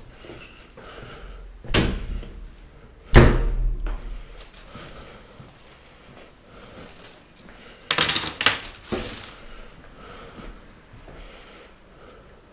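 Door and key handling: keys jangling and a few sharp knocks and clacks, the loudest about three seconds in and a cluster around eight seconds.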